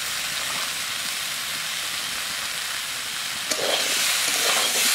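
Mixed vegetables sizzling steadily in hot ghee in a kadai. About three and a half seconds in, a spatula knocks against the pan and starts stirring, and the sound gets louder and rougher.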